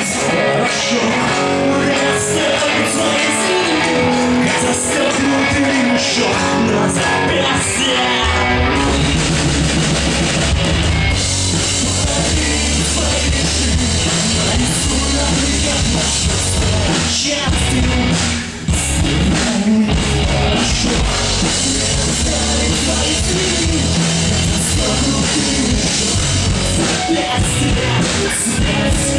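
Live rock music with electric guitar and singing; heavy bass and drums come in about eight seconds in.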